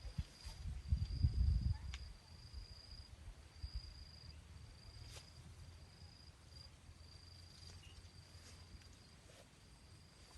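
An insect's steady high-pitched trill, going in stretches with short breaks. A louder low rumble on the microphone fills the first two seconds, with a few faint clicks.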